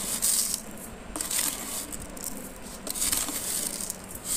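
Spoonfuls of granulated sugar tipped into a glass blender jar onto mango and cream, the grains falling in several short rattling bursts.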